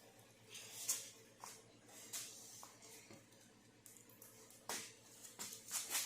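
Hand tools working on a bare engine block: scattered metallic clicks and short scrapes over a low steady hum, a cluster of them near the end.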